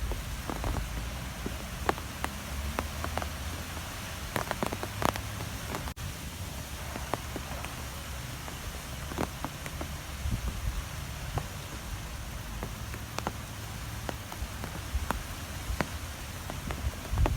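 Strong wind, heard as a steady low rumble and hiss, with scattered sharp ticks of something striking a surface.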